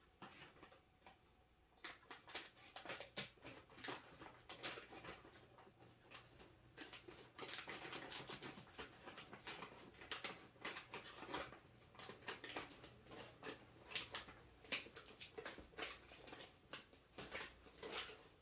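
Scissors snipping and a plastic Hello Panda cookie bag crinkling as it is cut and pulled open: many quick, sharp crackles, starting about two seconds in.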